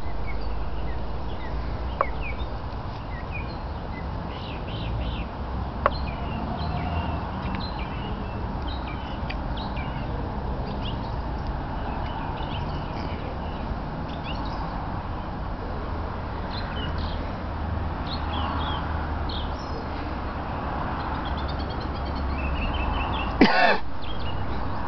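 Small birds chirping over a steady low rumble, with a couple of sharp clicks early on and one brief, louder pitched sound near the end.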